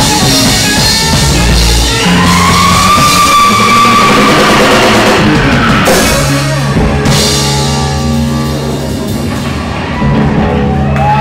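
Live rock band playing: distorted electric guitar holding long notes that bend up, sustain and then slide down, over drums with crashing cymbals. About six seconds in, low held notes take over underneath.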